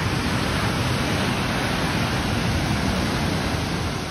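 Steady rush of sea waves washing onto a sandy beach, with wind on the microphone.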